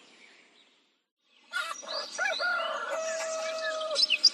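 Farmyard morning ambience fading out to a moment of silence, then starting again with a rooster crowing, ending in one long held note. Small birds chirp over it near the end.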